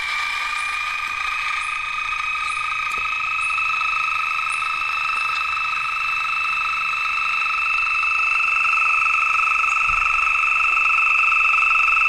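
Spillmann's tapaculo song: a single long, fast trill held for over ten seconds, steady and rising slightly in pitch. Faint high ticks come about once a second during the first half.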